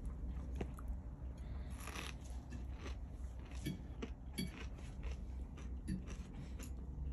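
A person chewing and biting food close to the microphone, with scattered short clicks and crunches, over a low steady hum.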